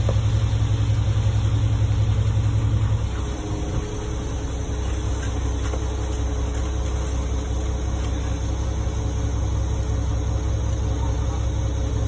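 Concrete mixer truck's diesel engine running steadily as it turns the drum to discharge concrete down the chute. The engine note drops and settles at a lower level about three seconds in.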